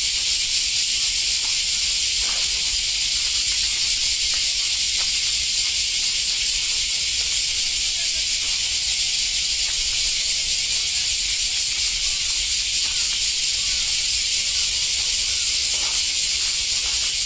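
A loud, steady high-pitched hiss throughout, with faint voices underneath.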